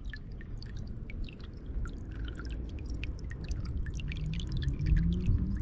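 Shallow seawater lapping and trickling in a rock pool among limpet-covered rocks, with many small drips and ticks over a low rumble.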